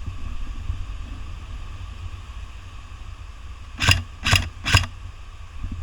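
Three sharp airsoft gun shots in quick succession, about 0.4 s apart, over a steady low rumble.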